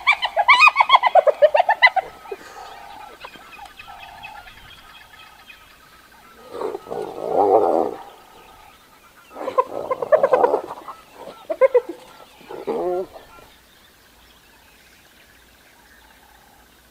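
Spotted hyenas calling at a kill: a fast run of high giggling cackles for the first two seconds, then several shorter bursts of calls between about six and thirteen seconds in, falling quiet near the end.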